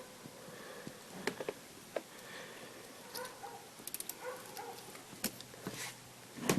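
Faint scattered clicks and light taps of small carburetor parts being handled during a strip-down, with a few faint short whining sounds in between.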